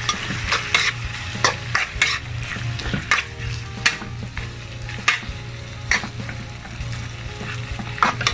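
Utensil stirring shrimp, squid, chicken liver and chicken as they sizzle in a frying pan, with short scrapes and knocks against the pan at irregular intervals. A steady low hum runs underneath.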